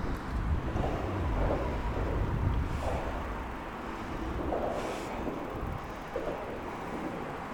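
Wind buffeting the handlebar-mounted microphone as a mountain bike rides along a concrete path, its knobby tyres rolling on the pavement. The rumble is heaviest in the first few seconds, then eases.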